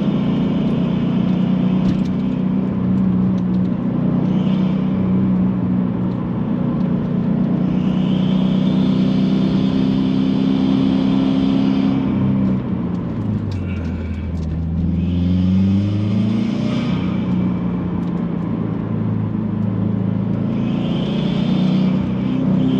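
2018 Subaru WRX's turbocharged flat-four, fitted with a GrimmSpeed cast aluminum turbo inlet and cold-air intake, running under way. The revs drop about halfway through, then climb again for a couple of seconds, with stretches of rushing hiss over the engine note.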